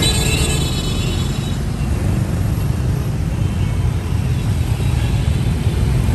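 Dense street traffic of motorbikes and cars: a steady, loud engine rumble, with a high-pitched tone over it for the first second and a half.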